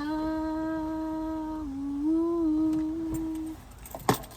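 A voice drawing out a long hummed 'mama' on one steady pitch for about three and a half seconds, with a small dip and then a rise in the middle. A single sharp click near the end.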